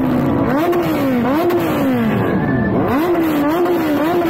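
Motorcycle engine revved in a string of quick throttle blips, each a sharp rise in pitch that sinks back, coming faster near the end.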